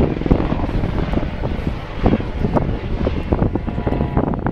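Aircraft flying over an airfield, a steady engine rumble, with wind buffeting the microphone in irregular gusts.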